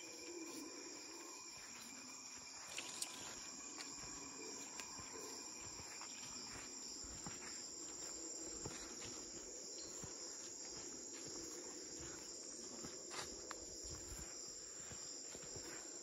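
Rainforest insects calling steadily in several high, unbroken tones, with soft footsteps and a few sharp clicks.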